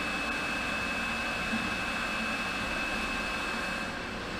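Startrite H325 horizontal mitering band saw running idle, not cutting: its 1.5 kW three-phase motor and gearbox driving the blade at the low end of its speed range. A steady mechanical hum with a thin, constant high whine on top.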